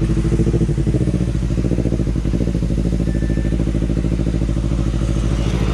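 Kawasaki Ninja 250 FI parallel-twin engine idling steadily through an Austin Racing aftermarket exhaust, with an even, regular pulsing note.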